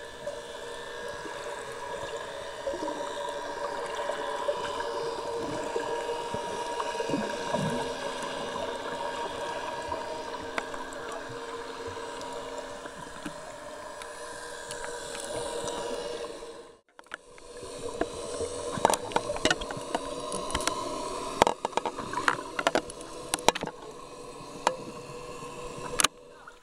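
Underwater sound picked up through a camera's waterproof housing: a steady hum with several held tones over a watery hiss. After a brief dropout past the middle, sharp clicks and knocks from bubbles and handling of the housing come through over the hum.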